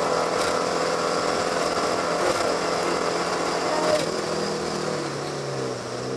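BMW 1802 ti rally car's four-cylinder engine heard from inside the cabin, running at steady high revs, then the revs fall and waver near the end as the driver comes off the throttle.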